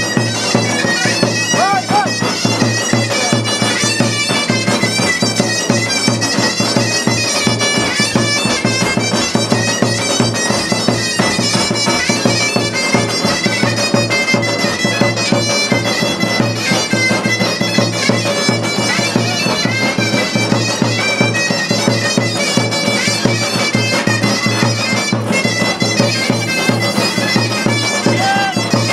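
Loud, fast folk dance music led by a shrill, reedy, bagpipe-like wind instrument playing a busy running melody over a continuous low drone and a quick driving beat.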